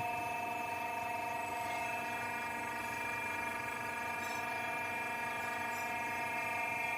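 CNC pipe bending machine running idle, its motor or hydraulic pump giving a steady, even whine with several fixed tones.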